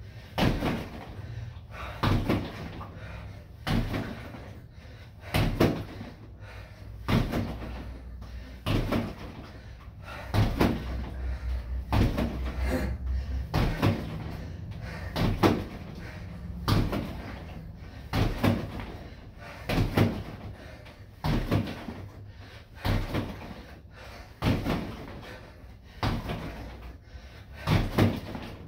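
Punches and kicks landing on a freestanding BOB (Body Opponent Bag) training dummy: heavy thuds about every second and a half, now and then two in quick succession.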